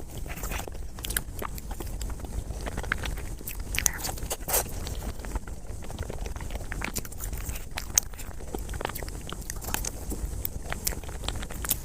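A person chewing and eating chocolate mousse cake, with irregular wet mouth clicks and smacks.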